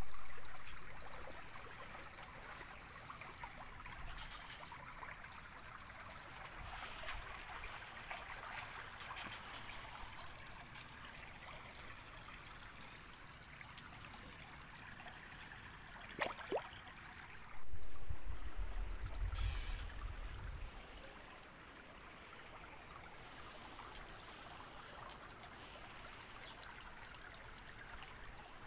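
Shallow stream water trickling and gurgling steadily. A low rumble on the microphone lasts about three seconds just past the middle, just after a brief sharp click.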